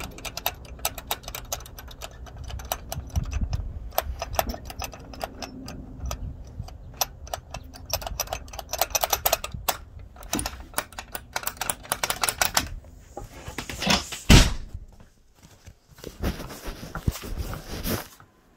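Handling noise from a phone held close to its microphone: dense, irregular clicks and scraping, with one louder knock about fourteen seconds in.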